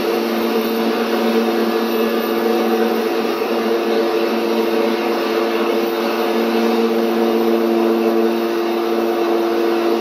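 Scale turbine sound from an RC Little Bird (MD 500-type) helicopter model's onboard sound system, running steadily as a hum of several held tones over a hiss while its tail rotor spins.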